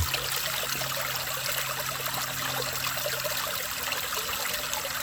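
Water running and trickling steadily. A low steady hum underneath stops about three and a half seconds in.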